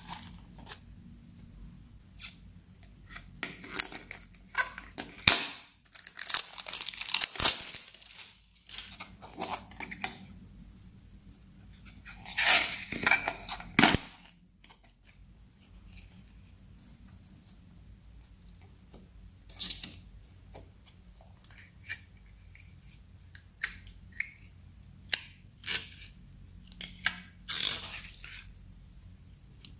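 Thin plastic slime cups being handled: lids peeled off and the cups crinkled and squeezed as the slime is pushed out. The result is a string of short crackles and tearing sounds, with two louder, denser runs in the first half.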